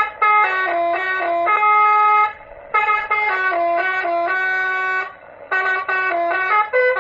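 Electronic Basuri telolet horn module, a 60-watt unit, playing a multi-note horn melody. Its steady tones step up and down in pitch in three phrases, with short breaks about two and five seconds in.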